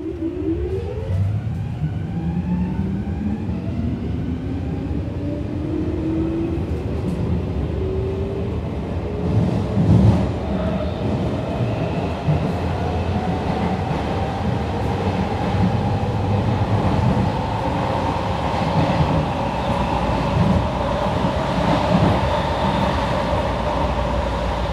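Electric metro train pulling away and gathering speed: the traction motors' whine rises smoothly in pitch and then levels off at speed, over a steady wheel-and-track rumble. A louder knock comes about ten seconds in.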